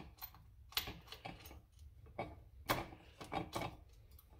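Scattered light clicks and taps as a piece of steel angle iron, with bolts started through it, is shifted by hand against the sheet-metal housing of an electric hoist to line up its bolt holes.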